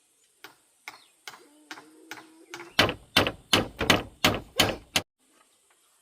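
Repeated blows of a hand tool on wood, about three a second, striking in a steady rhythm. The blows grow louder past the middle and stop suddenly about five seconds in.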